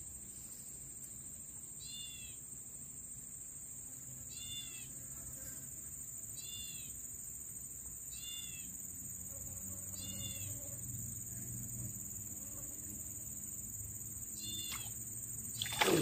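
Steady high insect buzz over a still pond, with a bird's short chirping call repeating about every two seconds. Near the end a loud splash breaks in as a hooked snakeskin gourami is struck and lifted thrashing out of the water.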